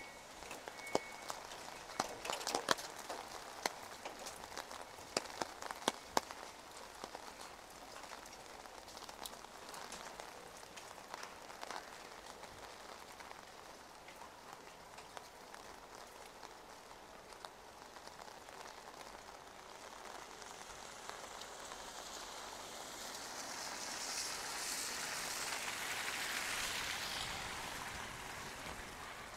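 Light rain falling on wet asphalt and parked cars, with sharp drops ticking close by during the first several seconds. Near the end a broader hiss swells and fades.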